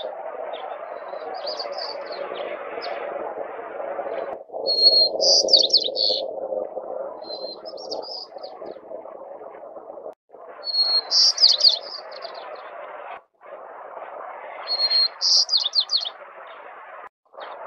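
White-crowned sparrow singing: three full songs, each opening on a steady high whistle followed by a quick run of buzzy descending notes, with fainter snatches of song between. A steady background noise lies under the songs.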